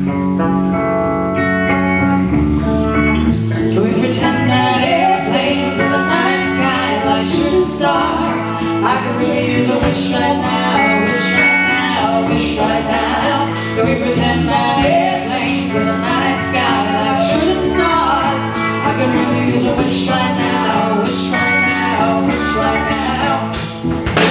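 Live band of electric guitar, bass and drum kit playing a song's intro: sustained guitar and bass notes, with the drums coming in about two and a half seconds in and keeping a steady beat.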